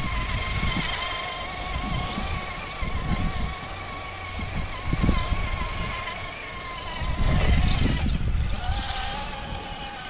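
Traxxas TRX-4 crawler on Deep Terrain Traxx tracks running, its electric motor and drivetrain giving a steady whine that wavers slightly and drops in pitch about nine seconds in, over an uneven low rumble from the tracks.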